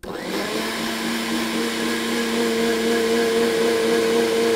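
Countertop blender switching on and running at a steady pitch as it purées chopped banana in salt water. The motor comes up to speed almost at once and holds an even whine.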